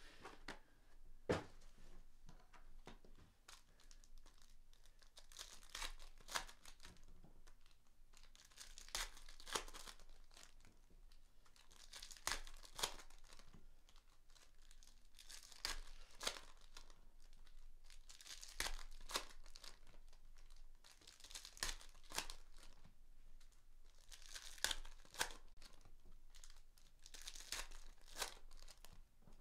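Trading card pack wrappers being torn open and crinkled by hand, in short bursts of rustling every few seconds, as Prizm Fast Break packs are opened.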